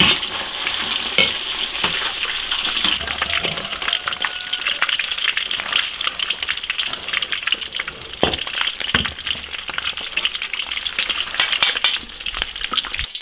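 Cornstarch-coated pork ribs deep-frying in oil in a wok: a dense, steady crackling sizzle, with a few scattered knocks.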